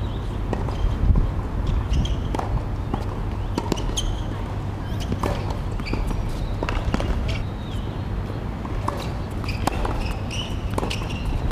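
Tennis rally on a hard court: sharp pops of racket strikes and ball bounces at irregular intervals, with the players' footsteps, over a steady low rumble.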